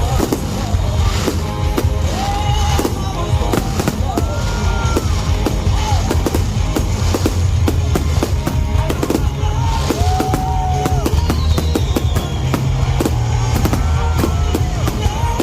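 Fireworks bursting in quick, irregular bangs and crackles, over loud music with strong bass.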